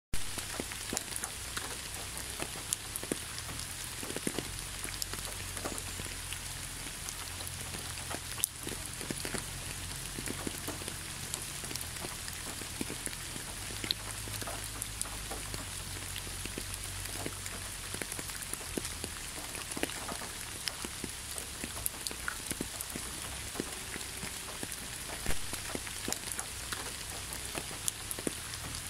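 Steady rain falling, with scattered individual drops ticking out against the hiss, over a low rumble.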